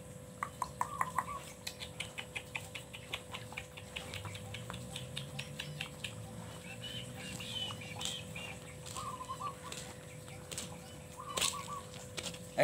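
Chickens clucking in short runs of quick notes, with a fast patter of ticks between them and a sharp knock near the end.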